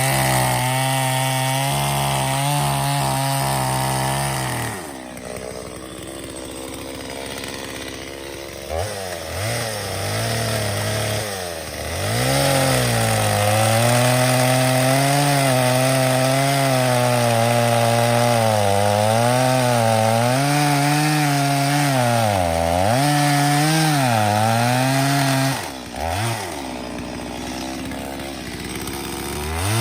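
Two-stroke chainsaw cutting wood at high revs. It drops back to idle about five seconds in, then revs up and cuts again, its pitch sagging a few times under load, and falls back to idle near the end before revving once more.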